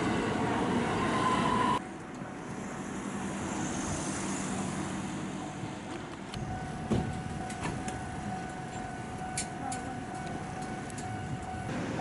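Train passing over a level crossing, its running noise cut off suddenly after about two seconds. Then quieter street ambience, with a faint steady tone starting about halfway through.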